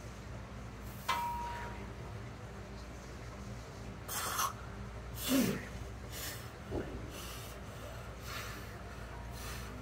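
A man breathing hard in several loud breaths while flexing, the loudest about five seconds in, over a steady low background hum. A short electronic beep sounds about a second in.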